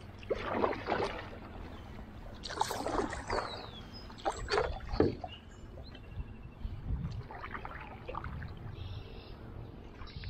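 Canoe paddle strokes: a paddle dipping and pulling through the river water in irregular splashes, strongest in the first five seconds and softer after.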